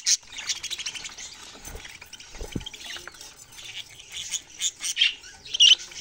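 A cage of budgerigars and other small parrots chattering in rapid, dense high-pitched chirps, with a few louder sharp squawks near the end.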